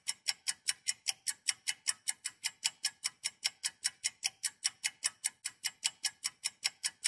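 Countdown-timer clock-ticking sound effect: crisp, even ticks at about five a second, marking the time left to guess.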